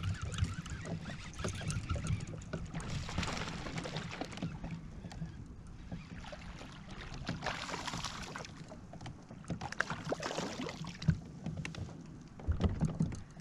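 Water sloshing and splashing around a kayak, in several short surges, with a few sharp knocks on the kayak's hull near the end.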